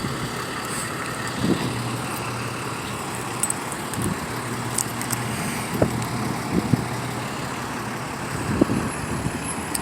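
A vehicle engine running steadily under outdoor traffic-type noise, with a low even hum and a few brief knocks.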